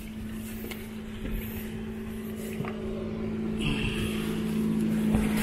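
An engine hums at a steady pitch, growing gradually louder.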